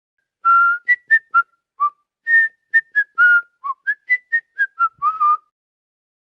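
Whistling: a quick tune of short, clear notes that hop up and down in pitch, with a few longer held notes among them.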